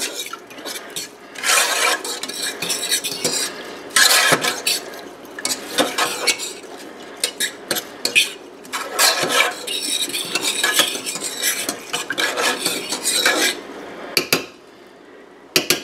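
A metal spoon stirring milk tea in a stainless steel saucepan, scraping and clinking against the pan's sides and bottom in irregular runs of strokes that ease off near the end.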